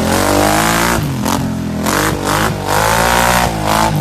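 800 cc quad (ATV) engine revving hard. Its pitch rises and falls several times as the throttle opens and closes, with a few short breaks in the note.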